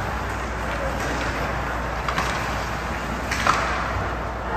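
Ice hockey game play in a rink: a steady low hum under even background noise, with a few sharp knocks of stick or puck, the loudest about three and a half seconds in.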